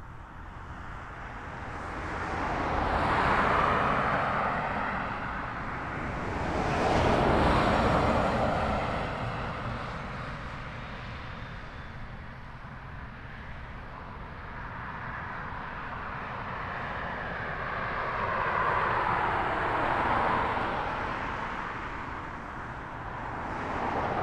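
Jet engine noise from a Boeing 737-800 freighter's CFM56 turbofans as it taxis after landing: a steady rushing hiss that swells and fades several times over a constant low rumble.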